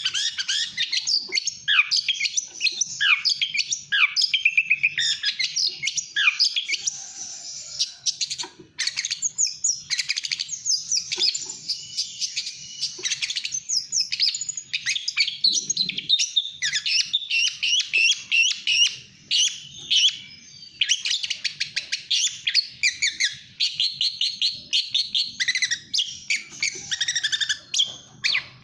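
Long-tailed shrike singing in full, continuous song: a fast, dense stream of sharp chirps and rapid trills, with short breaks about eight and twenty seconds in.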